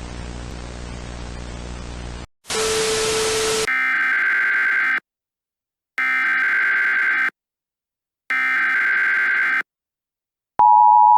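Static hiss, then a short noisy burst with a low tone, then the three EAS SAME header data bursts, each a buzzing digital squeal about a second long with a second's gap between them. Near the end the steady two-tone EAS attention signal starts.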